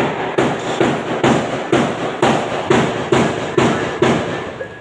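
A steady series of about ten sharp knocks, roughly two a second, each with a short ringing tail. They stop near the end.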